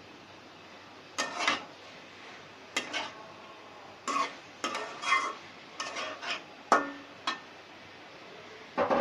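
Metal spatula stirring a thick curry in a metal pan: a dozen or so scrapes and knocks of spatula on pan, some with a short ring. They start about a second in and stop a second or two before the end, with one more knock at the very end.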